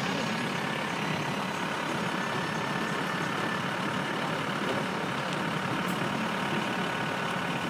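Steady road and engine noise of a moving van, heard from inside the cabin, even and unchanging throughout.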